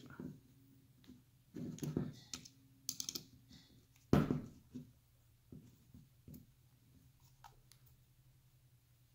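Small clicks and taps of a 2.5 mm hex key working the cheek riser screws on a Magpul CTR carbine stock while they are tightened, with one louder knock of the stock being handled about four seconds in.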